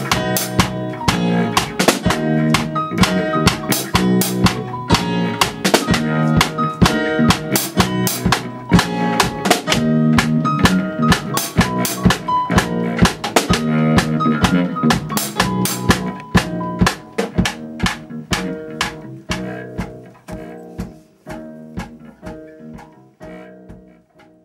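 Instrumental music with a drum kit beat, bass drum and snare strikes over pitched instruments, fading out over the last few seconds.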